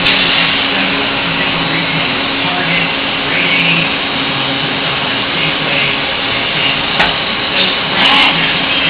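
Hardinge GT-27 CNC turning center running: a steady whirring hiss over a constant hum, with a lower tone coming and going and a sharp click about seven seconds in.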